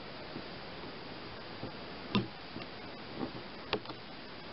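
Pliers clicking on an old fuel-hose clip at a plastic fuel-tank fitting as it is twisted: a handful of sharp, irregular clicks, the loudest about two seconds in and near the end, over a steady background hiss.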